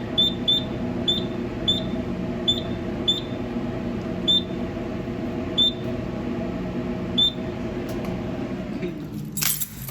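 Short high-pitched beeps from a Simplex 4100ES fire alarm panel, coming at uneven intervals and further apart as they go, over a steady electrical hum. A loud noisy burst comes in near the end.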